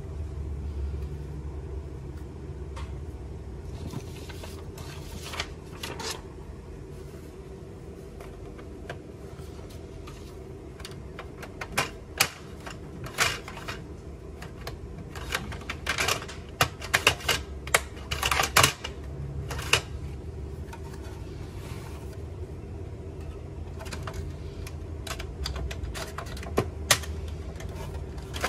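A ruler and a plastic strip clicking and knocking against the plastic chassis and paper path of an opened Canon inkjet printer as they are pushed in to clear jammed paper. The clicks come in a quick cluster through the middle, with a few more near the end, over a steady low hum.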